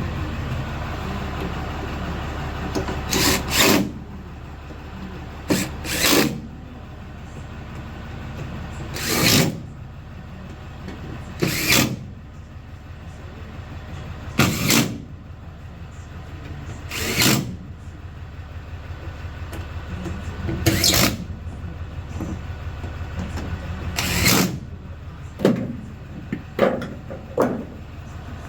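Power drill driving screws in short bursts every few seconds, fastening a pickup's tailgate access panel back in place, over a steady low hum.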